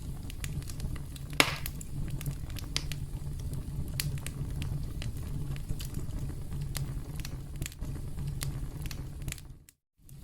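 Campfire crackling: a steady low rumble of burning wood with frequent sharp pops and snaps, one loud pop about a second and a half in. The sound cuts out briefly near the end.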